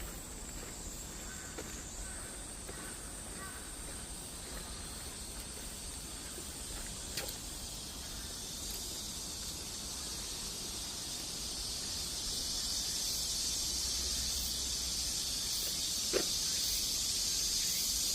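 Insect chorus: a steady, high-pitched drone that grows louder over the second half, with a few faint clicks.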